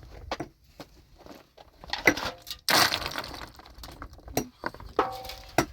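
Hard objects knocking and clinking in an uneven series, two strikes leaving a short metallic ring, with a longer crunching scrape about three seconds in.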